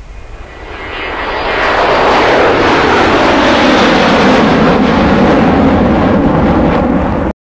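Sea King helicopter flying past with a vehicle slung beneath it: its engine and rotor noise grows louder over the first two seconds, holds steady, then cuts off suddenly near the end.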